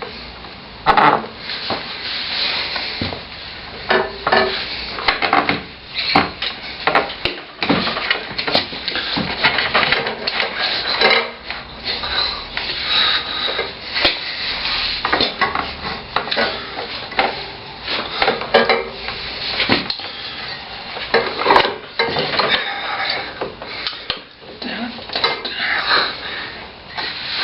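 Irregular metallic clinks, clanks and scraping from tools and metal motorcycle parts being handled during front-wheel and brake work.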